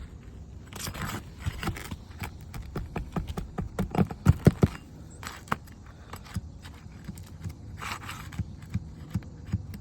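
Metal tool scraping and prying under a brittle asphalt roof shingle to draw out a roofing nail, with many clicks and a cluster of sharp knocks about four seconds in.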